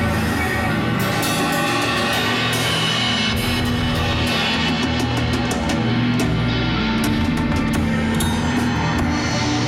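Heavy metal music led by a drum kit, with drums and cymbals hit continuously over sustained low bass notes.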